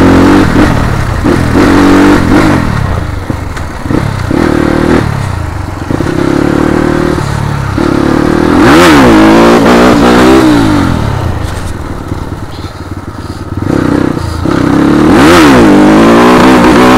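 Motor vehicle engine running loud and close under way, easing off twice and revving up again, its pitch climbing and falling a couple of times.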